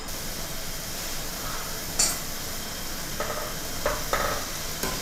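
Pita bread cubes sizzling as they deep-fry in hot oil in a stainless steel pot. A sharp click about two seconds in, then a few light knocks near the end as a mesh skimmer stirs the cubes against the pot.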